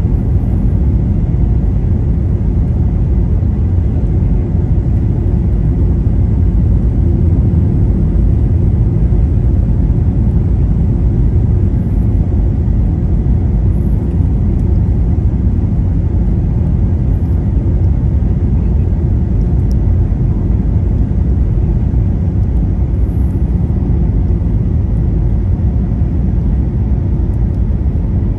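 Steady low roar inside the cabin of a Boeing 737-800 on final approach, its CFM56-7B turbofans and the rushing airflow heard from a window seat behind the wing.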